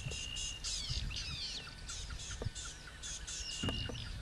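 Wild birds calling in the bush: rapid repeated chirps and twittering, with a held high whistle at the start and again near the end, over a low steady background rumble.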